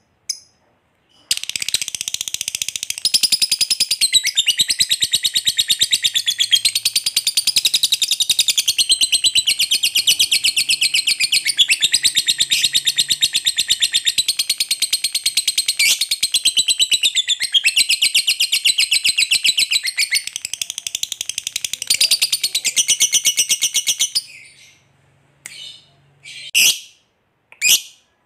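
Lovebird giving a long 'ngekek': a rapid, unbroken, high-pitched rattling chatter that starts about a second in and runs for about 23 seconds. It breaks off into a few short separate chirps near the end.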